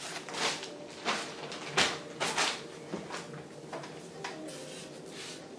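A thin embossed ceiling tile crinkling and rustling as it is handled overhead and pressed up against the ceiling, in a string of irregular short crackles.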